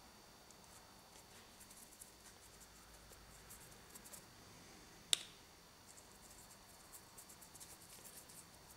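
Faint, scratchy dabbing and scrubbing of a fine paintbrush's bristles working paint into the rough surface of a cast rock face, with one sharp click about five seconds in.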